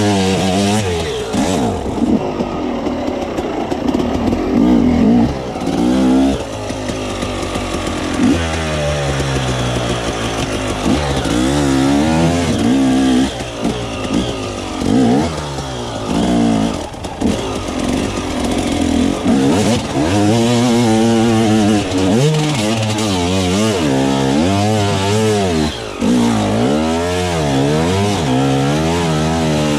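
Enduro dirt bike engine revving up and down over and over as the throttle is opened and closed, with the pitch climbing and falling every second or two.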